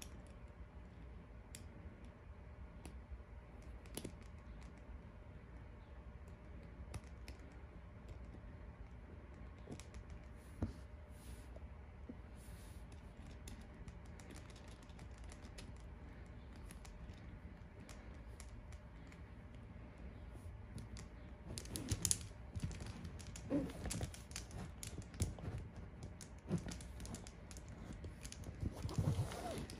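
Light clicks and taps of hard resin pieces and small metal hardware being handled while a screw is fitted into the axle of a resin Ferris wheel. The clicks are sparse at first, with a busier run of clicks and knocks from about two-thirds of the way in.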